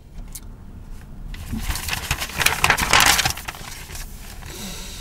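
Printed paper sheets rustling and crinkling as they are handled, a dense crackle for about two seconds in the middle.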